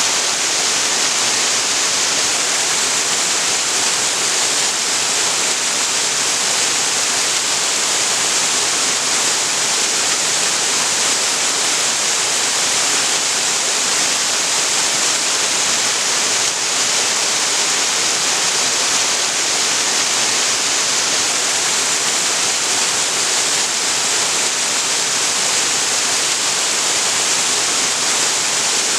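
Waterfall on a creek: a steady, unbroken rush of falling water, bright and hissy.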